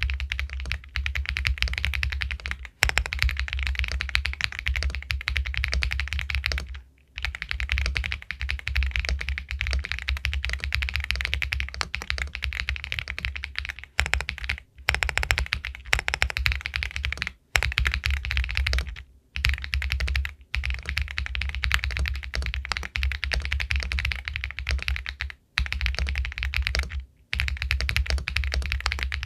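Fast, continuous typing on an Epomaker Galaxy 80 Pro all-aluminium mechanical keyboard with White Jade linear switches: a dense run of pebble-like keystrokes, broken by a few brief pauses.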